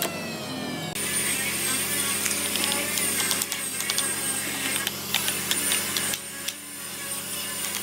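Light hammer taps, a scattered series, as small nails are driven into a thin piece of wood. Under them a steady low workshop hum with a faint high whine.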